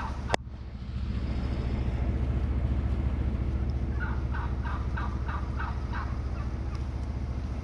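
Truck engine running steadily while driving, heard from inside the cab, with a sharp click just after the start. About four seconds in, a short rapid series of warbling notes lasting about a second.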